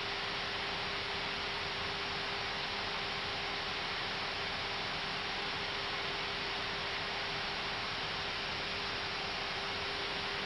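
Steady hiss with a constant low hum in an Airbus A320's cockpit audio during the climb.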